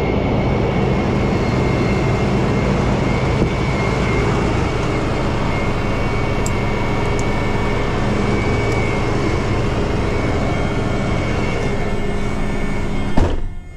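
Tow truck driving: a steady run of engine and road noise. Near the end it ends in a sharp click and a sudden drop.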